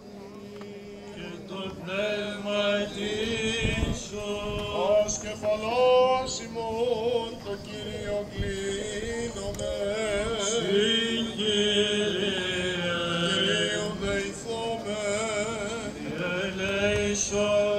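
Greek Orthodox Byzantine chant: male voices sing a slow, ornamented melodic line over a steady held low drone note.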